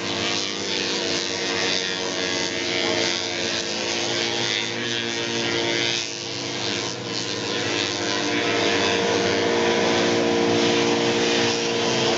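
Single-cylinder vintage racing snowmobile engines running at a steady, high drone, getting a little louder about two-thirds of the way through.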